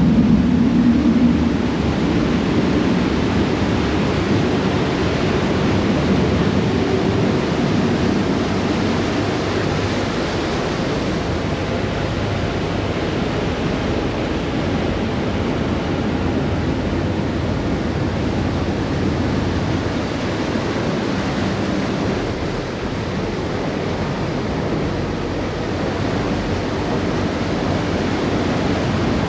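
Steady rush of wind and churned water from a passenger ferry under way, with a low engine drone that is strongest in the first couple of seconds.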